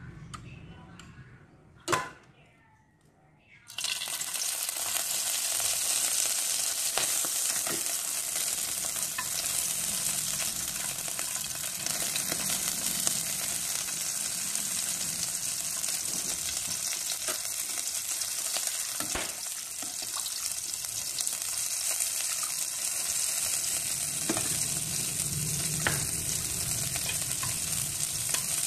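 Bánh xèo frying in a hot pan: a steady sizzle of oil that starts suddenly about four seconds in, with small crackles, after one sharp knock about two seconds in.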